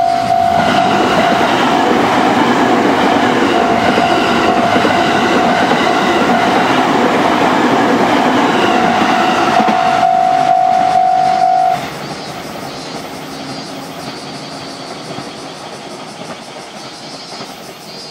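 JR East E231 series electric train passing over a level crossing, wheels clacking on the rail joints. The crossing's warning alarm sounds steadily over it and cuts off suddenly about twelve seconds in, and the train's noise then fades away.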